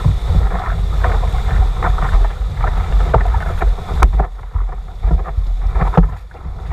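Wind buffeting the microphone over rushing whitewater and splashing spray as an outrigger canoe surfs a small breaking wave, with paddle strokes splashing. A single sharp tick about four seconds in, after which it quiets somewhat.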